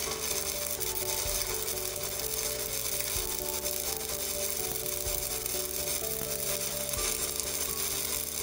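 Manual stick-welding arc from an Evrolux IWM190 inverter burning on a 3 mm MR-3 rutile electrode at about 90–100 A: a continuous, even crackling sizzle with no breaks. The arc is stable, not jumping or cutting out.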